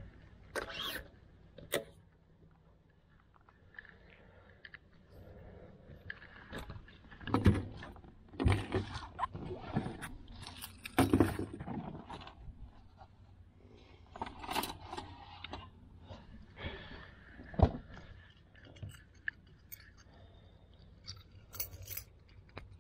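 Irregular knocks, rattles and scrapes of fishing gear being handled in a boat. The loudest clunks come about 7, 8, 11 and 17 seconds in.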